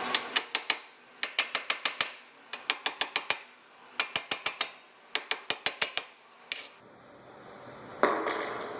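Hand ratchet clicking in short runs of about five clicks as the handle is swung back, backing out a bolt on the hub assembly, with brief pauses between strokes. A sudden rush of noise near the end.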